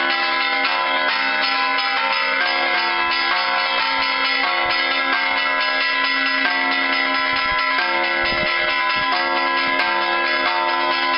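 Church bells rung by hand in a fast, continuous peal: quick strokes follow one another so the bell tones overlap and ring on without a break.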